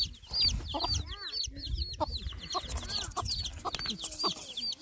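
Chicks peeping without pause in short high cheeps, about three a second, with a mother hen's lower clucks mixed in.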